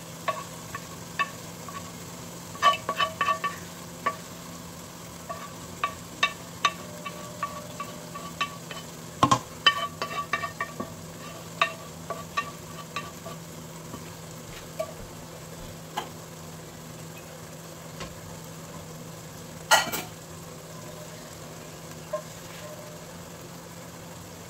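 Tomato and onion purée frying with sorrel leaves in hot oil in a pot: a steady sizzle broken by frequent sharp pops and crackles, with a loud burst of spattering about twenty seconds in.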